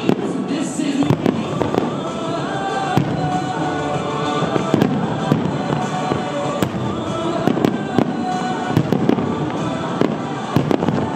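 Aerial firework shells bursting in an irregular run of sharp bangs, several close together at times, over loud music with held notes.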